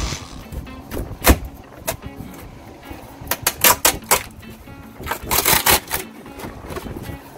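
Background music with a steady low tone, overlaid by scattered sharp knocks and short rustling clusters from close handling; the sharpest knock comes about a second in, with further groups of knocks near the middle and just after five seconds.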